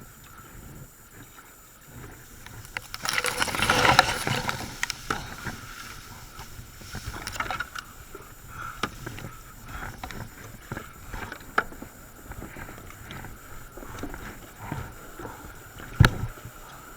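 Whitewater kayak on the river: paddle strokes splashing water, with a louder splash about three to four seconds in, and scattered small knocks, a sharp one near the end.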